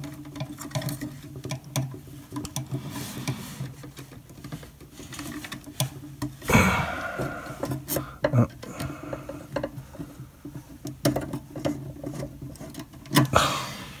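Small clicks, scrapes and rattles of a plastic lampholder light fixture being handled and screwed back onto a metal electrical box with a screwdriver, over a steady low hum.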